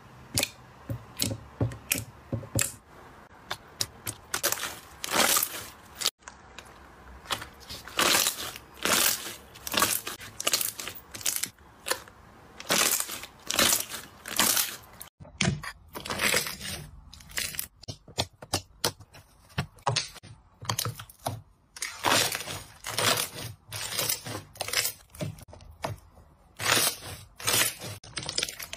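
Hands squeezing, pressing and folding clear jelly slime, making rapid runs of sticky pops, crackles and squelches.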